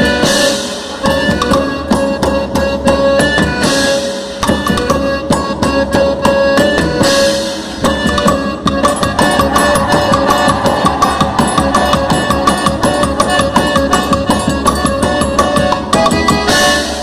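Instrumental festa junina quadrilha music with a fast, driving beat on drums and percussion under sustained melody notes, without singing.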